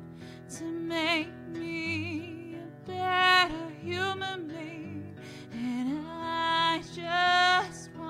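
A woman singing over her own guitar in a live performance, holding long notes with a marked vibrato.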